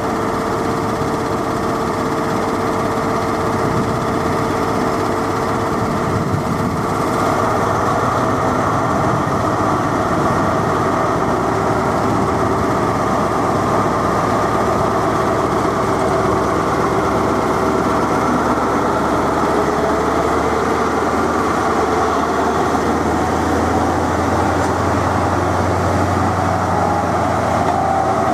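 Class 43 HST power car's diesel engine running steadily, then growing louder and deeper in the last few seconds as the train pulls away.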